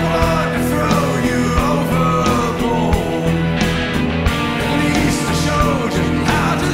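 Live rock band playing, with electric guitars, drums and keyboards, and a lead melody that slides between notes.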